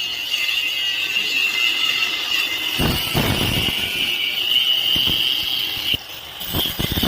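Stick (arc) welding: the arc's steady high hiss with irregular crackling, briefly breaking off about six seconds in before striking again.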